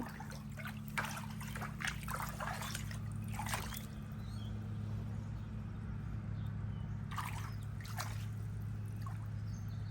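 Floodwater sloshing and splashing on a basement floor, with irregular splashes, most of them in the first four seconds and a couple more near the end, over a steady low hum.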